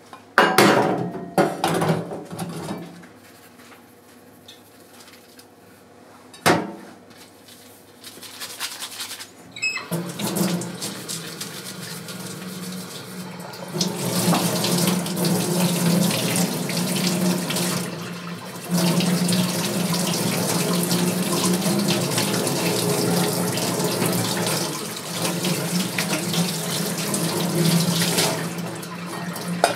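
Kitchen tap running hot water into a stainless-steel sink, splashing onto a plastic colander of shucked oysters as they are rinsed, with a low steady hum under the hiss. The water starts about ten seconds in and runs harder from about fourteen seconds. A few sharp knocks of bowls or utensils come near the start.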